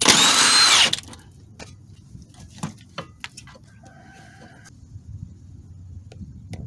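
Cordless power tool spinning out a 10 mm bolt: a high-pitched whine lasting about a second, followed by a few light clicks of metal parts being handled.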